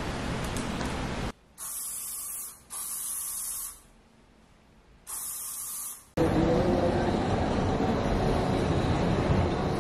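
Aerosol hairspray sprayed in three bursts of about a second each, a high hiss with short pauses between. About six seconds in, this gives way abruptly to louder, steady city street noise.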